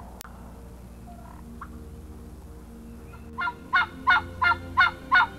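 Turkey yelping: a run of about six short, loud yelps, roughly three a second, starting a little past halfway.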